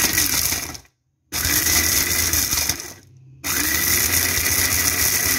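Electric mini chopper grinding whole dry spices, its motor run in short pulses: it cuts out about a second in, runs again for under two seconds, stops briefly, then runs on.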